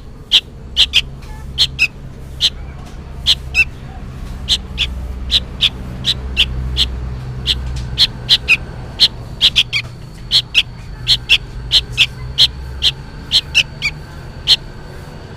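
A fledgling sooty-headed bulbul gives short, sharp calls over and over, about two a second, some with a quick downward tail. The uploader likens this to a young bird calling for its parent, though he is not sure. A low, steady rumble runs underneath.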